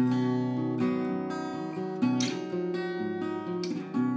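Acoustic guitar strumming the opening chords of a song, each chord ringing on between strokes.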